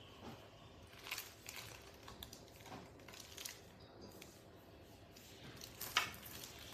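Faint, scattered clicks and crinkles as hands handle plastic-wrapped metal loaf tins, with the sharpest click about six seconds in.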